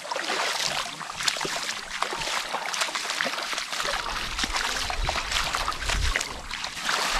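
Shallow stream water running and splashing, with irregular sloshes as someone moves in the water among the rocks. A low rumble joins about four seconds in.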